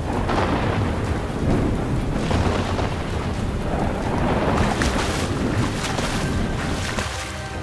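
Heavy rain with thunder rumbling, swelling a few times.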